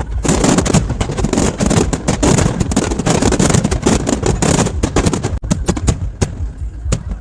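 Fireworks display: a dense run of rapid bangs and crackles that thins out to scattered single bangs about five seconds in.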